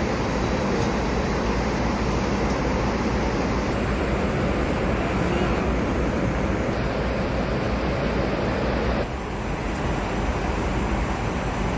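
Steady rushing drone of a jet airliner's cabin in flight: engine and airflow noise heard from a passenger seat, a little quieter after about nine seconds.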